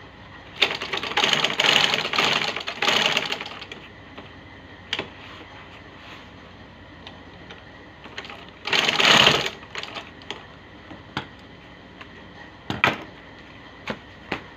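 Sewing machine stitching shoe uppers in two runs: about three seconds near the start and a shorter one about a second long in the middle. Scattered single clicks fall between the runs and near the end.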